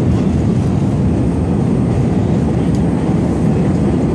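Steady, loud rumble heard from inside a moving 1968 Pullman-Standard MBTA Red Line subway car as it runs along the rails.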